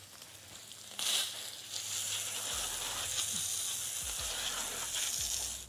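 Garden hose spraying water onto a sawn cherry slab: a steady hiss that starts about a second in and cuts off near the end.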